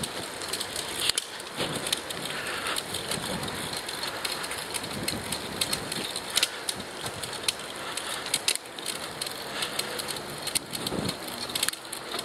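Recumbent bicycle rolling along a paved trail scattered with leaves: a steady rush of tyre noise and rustling, with frequent small crackles and clicks.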